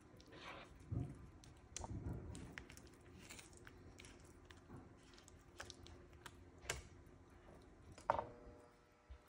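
Silicone spatula squelching through thick cheese sauce and scraping and tapping on a nonstick pan, with scattered soft clicks. The sharpest tap, with a short ring, comes about eight seconds in.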